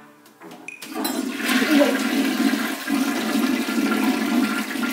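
Toilet flushing: a few light clicks, then water rushes into the bowl from about a second in and keeps running steadily.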